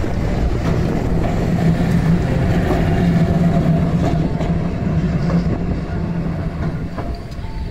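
Randen single-car electric tram running past on street track and pulling away, a steady low hum over rumbling wheel and road noise that fades near the end as it draws off.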